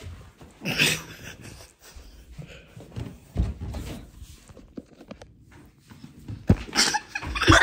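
Several dull thumps and rustling from a phone being carried and handled, with laughter breaking out near the end.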